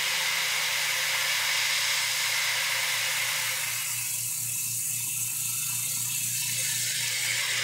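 Airbrush spraying paint in a continuous hiss of air, with a low steady hum underneath.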